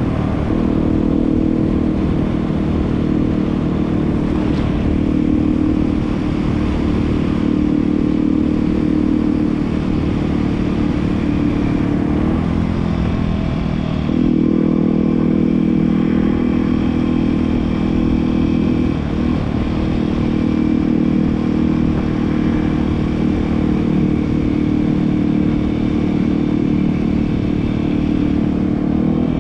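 Yamaha WR250R's single-cylinder four-stroke engine running steadily under way, recorded on board the moving bike. The engine note dips briefly about twelve seconds in and again near nineteen seconds, then picks back up.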